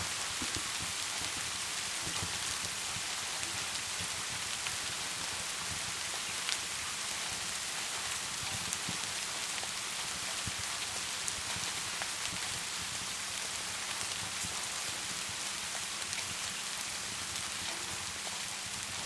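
Steady rain falling, with a few sharp crackles and pops from a wood fire scattered through it.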